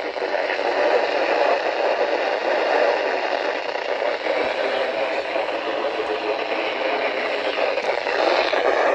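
Static from a weather radio receiver tuned to a weak, distant station: a steady rushing hiss.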